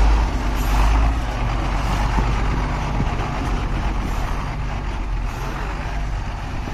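Loaded truck's diesel engine running, loudest in the first second or so and then easing slightly. The truck is working on loose, freshly dumped soil that it struggles to climb.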